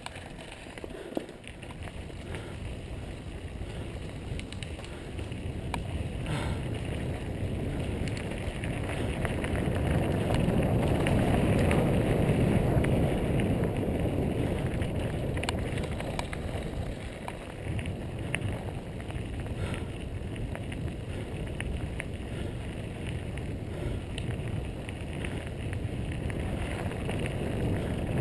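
Mountain bike riding over a rough dirt trail: wind rushing over the microphone and tyres rumbling, with scattered light clicks and rattles. It grows louder over the first ten seconds or so, then stays steady.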